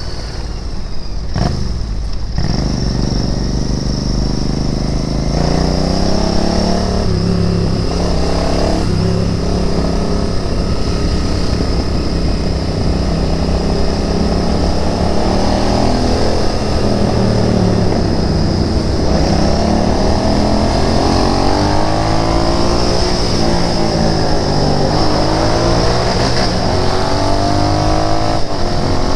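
Royal Enfield Interceptor 650's parallel-twin engine under way, its revs rising and falling several times as the rider works the throttle and shifts gears.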